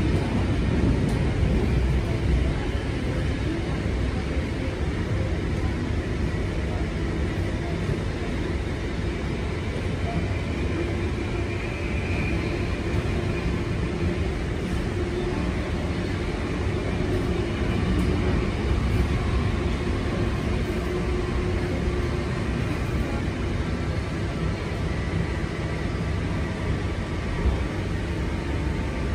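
Interior running noise of a Sydney 'Chopper' C-set electric suburban train in motion: a steady rumble of the wheels on the rails and the carriage heard from inside.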